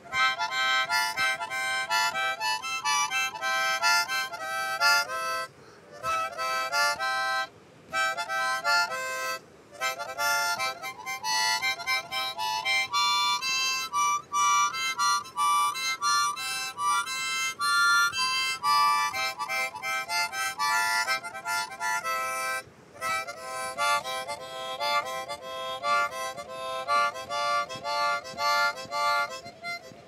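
Harmonica played in a continuous run of notes and chords, breaking off briefly four times.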